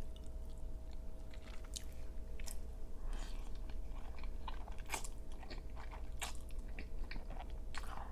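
Close-miked chewing: wet mouth smacks and clicks with a few crunchy bites, coming more often after about three seconds.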